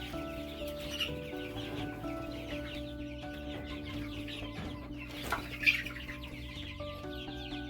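A flock of six-week-old kienyeji chicks peeping and clucking continuously, with a louder call or two about five and a half seconds in.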